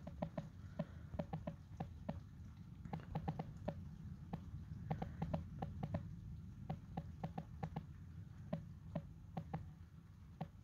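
Raindrops dripping and ticking irregularly on a hard surface, several a second, over a low steady rumble.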